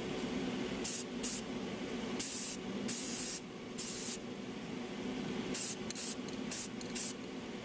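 Rust-Oleum aerosol spray can spraying paint onto plastic model-kit parts in a series of short hissing bursts, some about half a second long, over a steady low hum.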